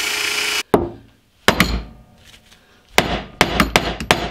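Bench drill press running as the bit cuts through a steel ball joint, stopping abruptly about half a second in. Then a hammer drives a dowel pin into the freshly drilled 5 mm hole, with about eight sharp metallic blows: two spaced ones and then a quick run near the end. The pin locks the ball joint in its worn-out, enlarged hole.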